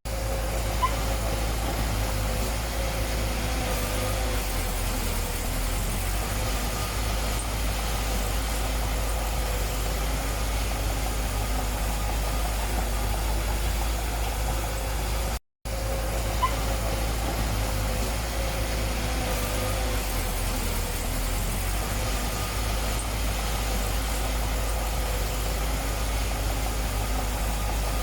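Diesel engine of a heavy construction machine running steadily, with a deep, even rumble. The sound cuts out for a moment about halfway through, then carries on the same.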